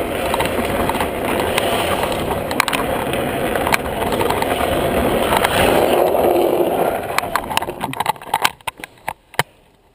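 Drift trike running fast down an asphalt road: a steady rumble of wheels on the tarmac mixed with wind noise. About eight seconds in it quietens sharply, leaving scattered knocks and clicks.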